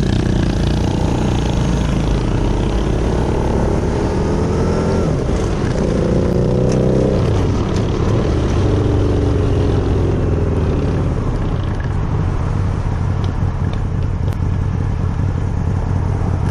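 Harley-Davidson V-Rod's liquid-cooled V-twin running under load as the motorcycle pulls away and accelerates. The engine pitch rises twice and drops back with gear changes, over steady wind and road noise.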